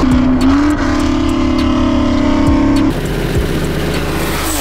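Car engine held at steady high revs, then backing off about three seconds in to a lower rumble.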